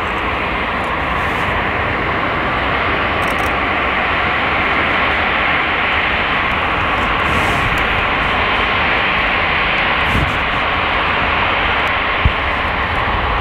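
An Airbus A380's four Rolls-Royce Trent 900 turbofan engines run at low taxi power, a steady, even jet engine noise. There is one short sharp click near the end.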